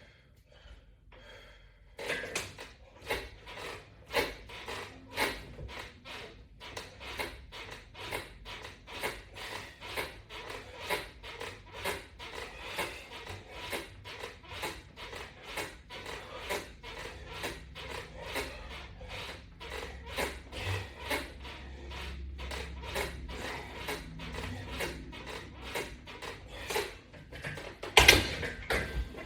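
Rhythmic rubbing strokes, about two a second, from repeated workout reps, with a louder knock near the end.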